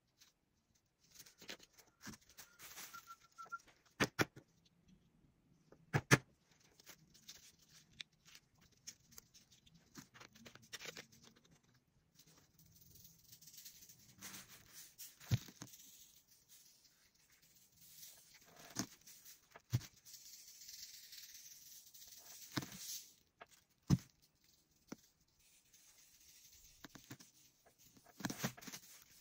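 Handling of a glass bottle and craft materials over a plastic bag: scattered sharp taps and clicks, with stretches of soft rustling and brushing, the longest in the middle.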